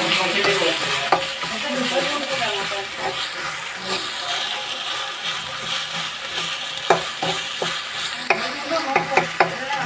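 Prawns sizzling as they fry in a black wok while a steel spatula stirs them. Several sharp clicks of the spatula against the pan come in the last few seconds.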